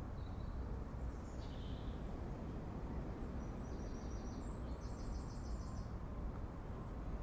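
Faint songbird phrases: a short high call, a falling note, then a quick run of repeated high notes about four to five seconds in. Underneath is a steady low rumble of outdoor background noise.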